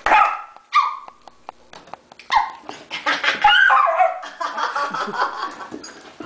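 Two dogs playing: two short, sharp barks in the first second, then a longer stretch of yips and play noises mixed with a woman laughing.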